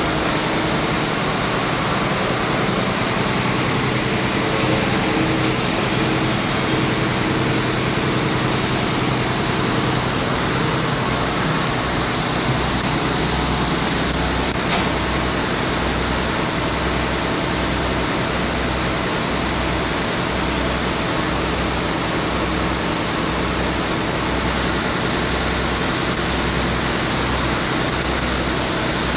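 Wirtgen 1000C cold milling machine's diesel engine running steadily, a loud even noise with a low throb pulsing about once a second underneath.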